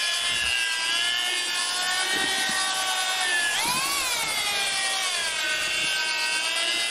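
Corded drill with a paddle mixer running steadily, stirring mortar in a plastic bucket. The motor's whine dips and then surges in pitch about halfway through as the speed changes, then settles back.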